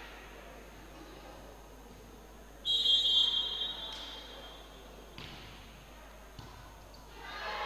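Referee's whistle blown once, a short, shrill blast that signals the serve, echoing in the sports hall. A few dull knocks of the volleyball being played follow, and voices rise near the end.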